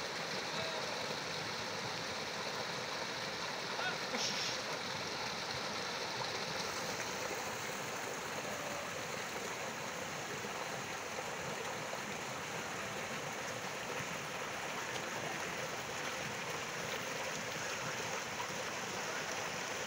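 Steady rushing of a small mountain stream tumbling over rocks.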